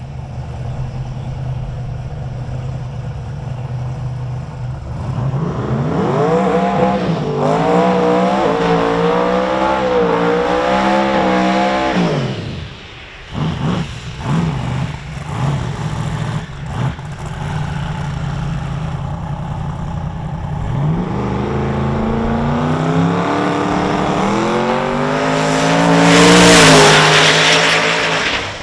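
Twin-turbo 454-cubic-inch V8 of a Holden Monaro drag car: idling, then revving hard and held high for several seconds through a burnout. A few short, sharp throttle blips follow. Then comes the full-throttle launch, revs climbing in steps through the gears, with a loud rushing blast near the end.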